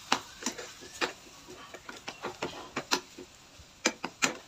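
Spatula tapping and scraping against a pan while stirring a thick mashed-potato mixture: a string of irregular clicks and knocks, the two loudest near the end.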